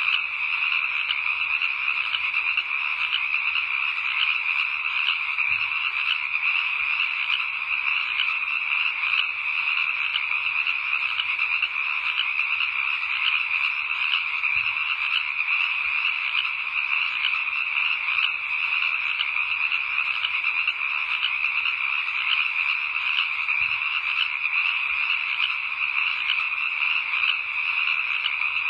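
Steady night chorus of frogs, many calls overlapping in a dense, unbroken wall of sound.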